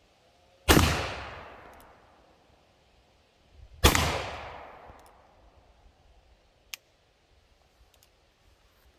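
Two shots, about three seconds apart, from a .44 calibre 1851 Navy reproduction cap-and-ball revolver loaded with black powder, each trailing off in a long echo. A single faint click follows a few seconds later.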